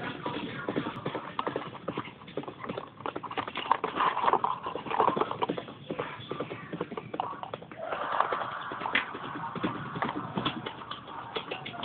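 A small plastic toy figure tapping and clattering irregularly against a wooden tabletop as it is hopped and moved about by hand.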